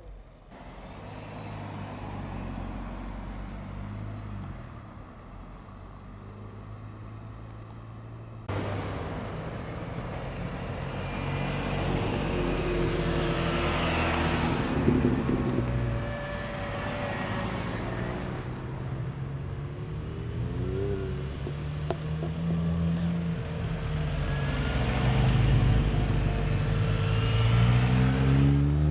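A line of modern MINI cars drives slowly past one after another, their petrol engines running at low revs with the revs rising and falling as each one pulls through. The engine sound steps up about a third of the way in and grows louder toward the end as the cars come closer.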